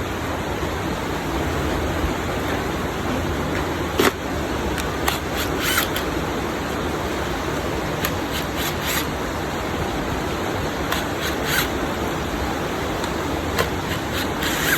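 Small screws and a screwdriver being handled while fastening parts of a speaker cabinet: scattered light clicks, the sharpest about four seconds in and small clusters after, over a steady background hiss.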